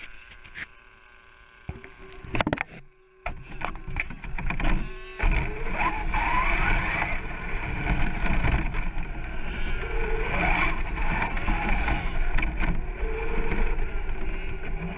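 Onboard sound of a Turnigy Trooper SCT 4x4 brushless RC short course truck: a few knocks, then about five seconds in it sets off, its motor whine rising and falling with the throttle over a loud rumble of tyres on the rough airfield surface.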